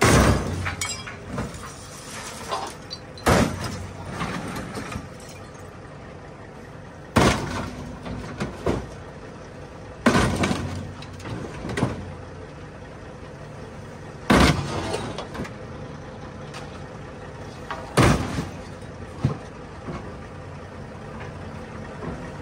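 Excavator bucket slamming down onto an old car's roof and body six times, about every three to four seconds. Each blow is a heavy crunch of sheet metal followed by a little crackling and creaking, over the excavator's diesel engine running steadily.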